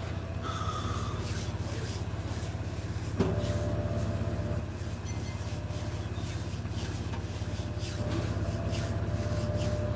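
Jeep engine idling, a steady low hum with an even pulse, heard from inside the cabin.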